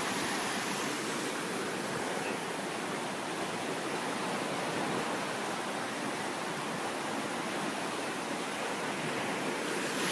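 Steady rushing of floodwater running fast down a canal, an even wash of noise with no breaks.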